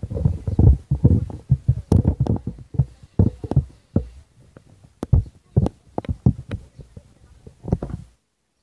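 Irregular low thumps and rumbling from the camera's microphone being buffeted, loud and uneven, cutting off suddenly about eight seconds in.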